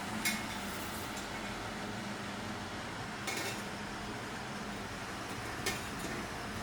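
A metal utensil clinking against a cooking pan three times, a few seconds apart, over a steady background hiss and low hum.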